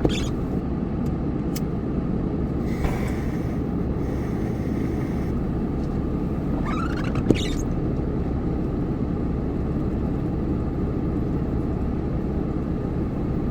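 Steady low rumble of an idling truck heard inside the cab. A short whine comes about three seconds in, and a click about seven seconds in.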